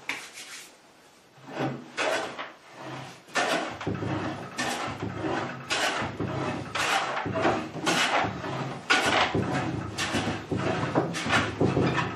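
Restored hand plane taking repeated strokes along a wooden board, each stroke a short hiss of the blade shaving the wood. A few scattered strokes at first, then a steady run of a little more than one stroke a second.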